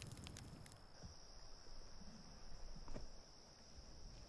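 Crickets trilling steadily in a faint, high, unbroken chorus, with a few sharp clicks in the first second and another about three seconds in.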